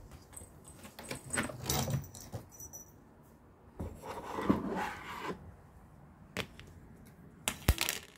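Rustling and crinkling of a foil-tinsel cat toy being batted about on a cardboard scratcher, in irregular bursts with light clicks. A sharp knock near the end.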